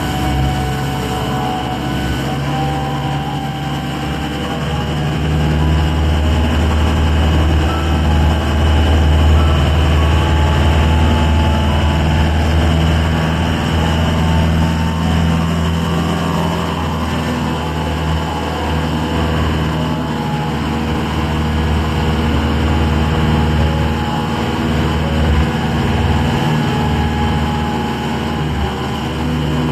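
Ferry boat's engine running steadily with a low, even hum, a little louder from about five seconds in.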